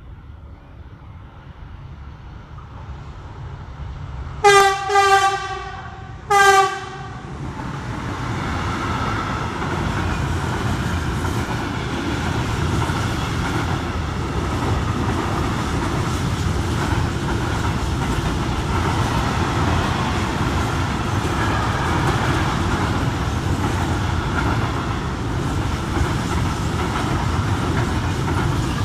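A freight train's locomotive sounds two horn blasts, the second shorter, as it nears. Then a long train of open freight wagons rolls past close by, with a steady rumble and wheel clatter on the rails.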